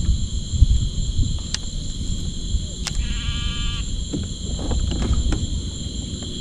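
Steady high buzzing of evening insects, with a low rumble, a few sharp clicks and a short bleating call about three seconds in.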